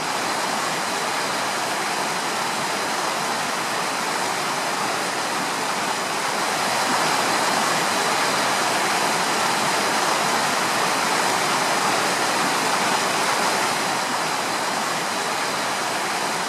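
Steady rush of a mountain stream, even and unbroken, a little louder in the middle.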